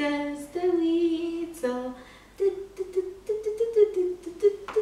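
A toddler's voice singing a wordless tune: a few long held notes, then a string of shorter notes stepping up and down.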